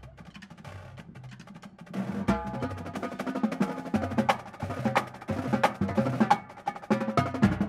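Marching drumline playing a drum break on Pearl snares, quads and bass drums. It plays softly for about two seconds, then comes in loud with dense, rapid strokes over low, pitched bass-drum notes.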